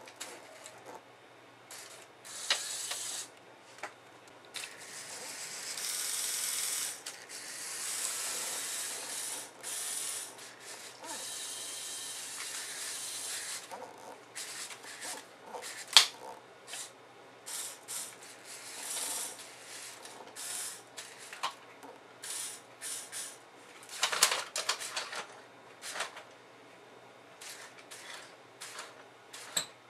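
Motors and plastic gears of a remote-controlled Lego Technic tow truck running in stretches of a few seconds. Many sharp plastic clicks and ticks fall in between, the loudest about 16 s in.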